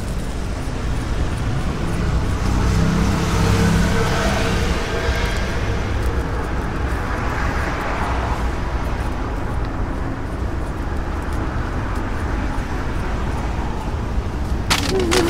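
Street traffic ambience: a steady low rumble with passing cars swelling past about three and eight seconds in, and a couple of sharp clicks near the end.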